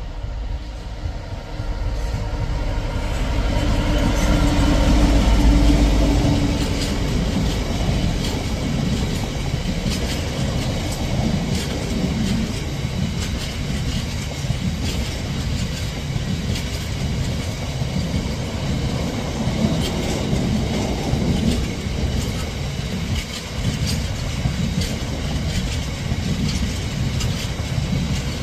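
A Class 66 diesel freight locomotive passes, its engine loudest about five seconds in, followed by a long rake of biomass hopper wagons rolling by with a regular clickety-clack of wheels on the rails.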